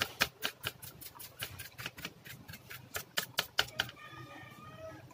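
Quick, even clicking taps of fingers on a laptop motherboard at its fan and heatsink corner, about five a second, stopping about four seconds in.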